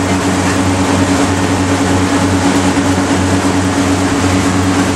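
Tour boat's motor running steadily at cruising speed, a constant low drone, with an even rushing noise of wind and water from the boat underway.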